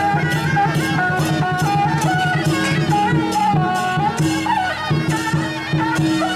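Loud traditional procession music: a reedy wind melody with slides, over a held drone and a fast, steady drum and cymbal beat.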